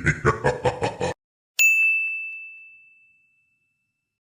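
A short burst of laughter cuts off abruptly, then a single bright ding sound effect rings out once and fades away over about a second and a half.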